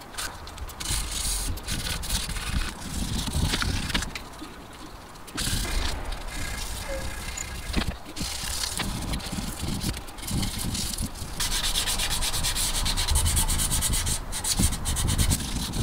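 Rover K-series piston tops being scrubbed by hand with an abrasive pad, a continuous scratchy rubbing as the muck is cleaned off, with a short lull about four seconds in.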